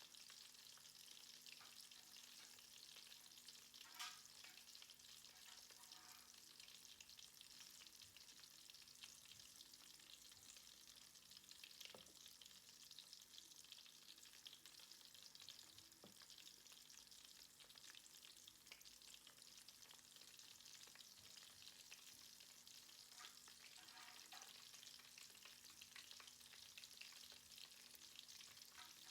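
Prawn vadai (chana dal fritters topped with prawns) deep-frying in hot oil: a faint, steady sizzle with small crackles and an occasional sharper pop, the clearest about four seconds in.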